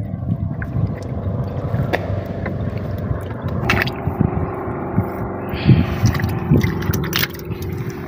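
A gill net is hauled by hand over the side of a small wooden outrigger boat, with water sloshing against the hull and scattered knocks and scrapes of net and hands on the boat. About three and a half seconds in, a steady boat-engine drone comes in underneath.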